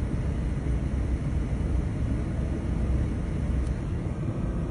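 Steady low rumble inside a stopped car, its engine running.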